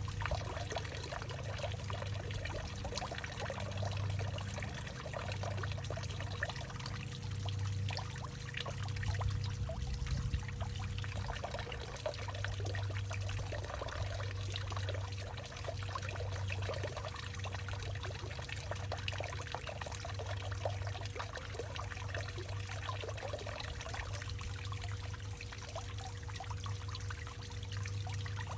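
Water pouring and trickling into a hollowed-out tree, a steady rush of small splashes over a low hum that swells and eases.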